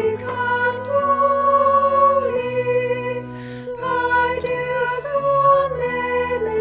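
Choir singing a slow hymn in parts, holding long chords that change about once a second.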